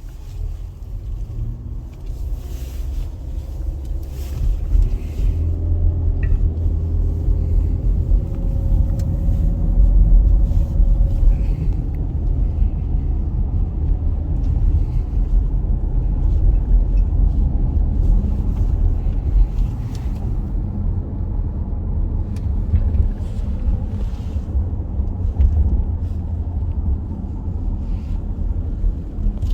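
Nissan Rogue SUV driving, heard from inside the cabin: a steady low road and engine rumble, with an engine note that rises a few seconds in as it picks up speed.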